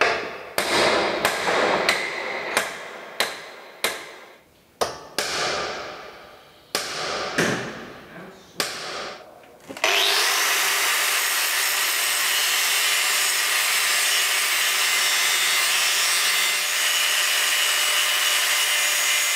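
A hammer strikes the steel side-knife bar of a combine held in a vise, about a dozen ringing metal blows, knocking out the old knife sections. About ten seconds in, an angle grinder starts and grinds steadily against the steel bar, a loud, even, high grinding.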